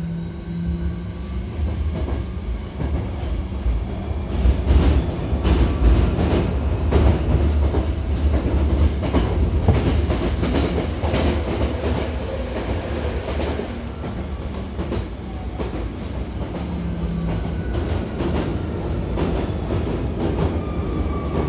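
Hankyu Kyoto Line electric train heard from inside the passenger car while running: a steady low rumble with rapid clicks of the wheels over rail joints. Near the end a falling whine comes in as the train slows on its way into the station.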